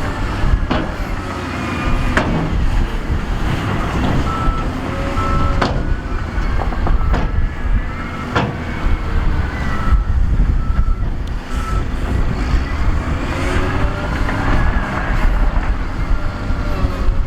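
Diesel heavy equipment working: a deep engine rumble throughout, with a few sharp clanks. A reversing alarm beeps in a steady run of short beeps through the middle.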